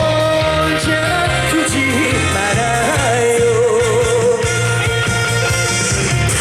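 Upbeat trot song played live over a backing track: a steady bass beat under a melody line that holds long notes with a wavering vibrato.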